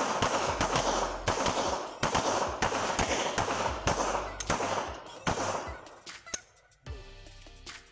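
Pistols firing at an outdoor range: a rapid, uneven string of sharp shots, roughly two a second, from more than one shooter, thinning out and stopping near the end.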